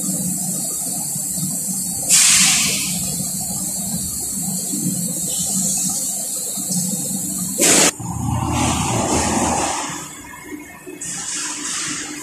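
VMC850 CNC vertical machining center drilling steel plate under coolant: a steady hiss of coolant spray over the machine's low hum, with two brief louder rushes about two and eight seconds in. After about eight seconds the sound changes, then drops quieter near ten seconds.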